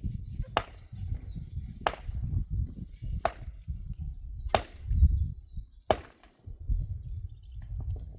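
Five sharp, evenly spaced knocks of something being struck, about one every second and a quarter, over a steady low rumble.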